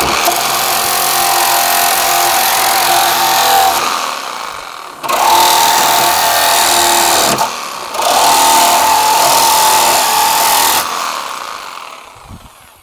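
Electric power saw cutting through old wooden deck boards. It runs in three long stretches with short dips between them, with a steady motor whine, and winds down near the end.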